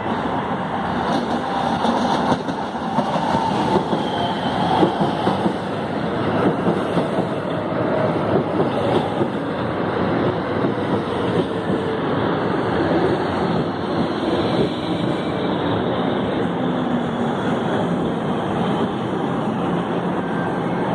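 São Paulo Metro K-series train pulling into the station, with wheels running on the rails and the rumble of the cars passing close by the platform. A faint whine falls in pitch as the train slows.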